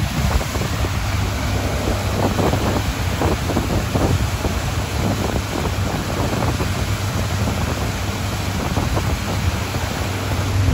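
Pontoon boat's outboard motor running at cruising speed with a steady low hum, under rushing wind that buffets the microphone in irregular gusts, with the churning wake behind the boat.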